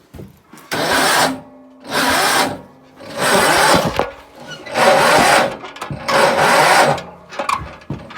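A small engine being cranked in five short bursts, turning over without catching: a cold no-start.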